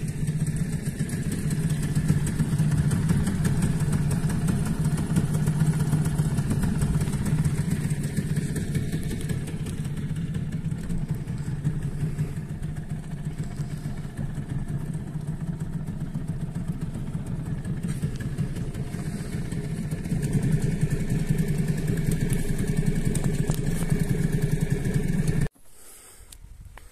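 Sailing yacht's motor running steadily under way after a little extra throttle, a steady low hum, a bit louder for the last few seconds. It cuts off abruptly near the end, leaving only a faint quiet background.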